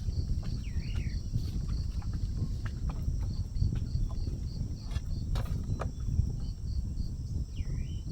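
Outdoor morning ambience: wind rumbling on the microphone, insects chirping in an even pulse of about three a second over a steady high buzz, a short bird call twice, and a few scattered clicks.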